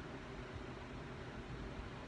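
Steady background hiss and low rumble with no snore: the quiet gap between a sleeping man's snores.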